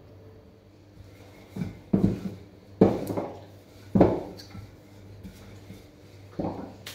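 Household clatter of dishes and utensils: five sharp knocks at uneven intervals, with a faint steady hum underneath.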